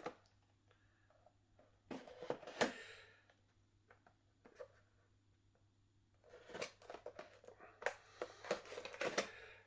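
Cardboard toy box being handled and opened: scattered light clicks, taps and rustles of the packaging in two spells, around two seconds in and again from about six seconds on, with a quiet gap between.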